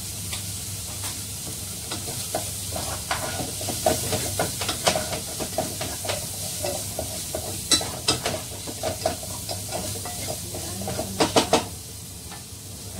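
Food sautéing in oil in a frying pan, sizzling steadily while a wooden spatula stirs and scrapes against the pan. Near the end, three quick knocks of the spatula on the pan.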